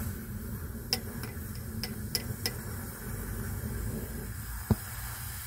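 Sharp crackles and ticks from a molten potassium nitrate and sodium hydroxide melt in a tin-can crucible as sulfur is sprinkled in and the mix flares up: about five ticks in the first few seconds and one louder thump near the end, over a steady low rumble and a faint hiss.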